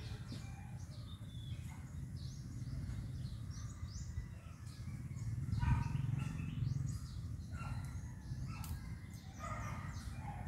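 Scattered bird chirps over a steady low rumble, with a dull knock a little under six seconds in.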